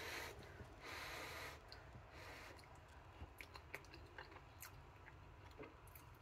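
Faint sounds of a person eating a spoonful of soft hot quinoa cereal with banana: a few short breathy rushes in the first two seconds, then quiet chewing with many small mouth clicks.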